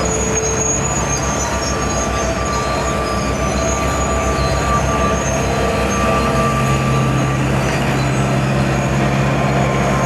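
Steady mechanical running noise of a vehicle in motion, with several held tones over a fast, even low pulsing; a low hum grows stronger about six seconds in.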